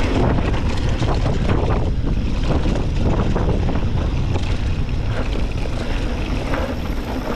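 Wind buffeting the microphone over the rumble of mountain bike tyres rolling on a loose dirt trail, with scattered rattles and clicks from the bike.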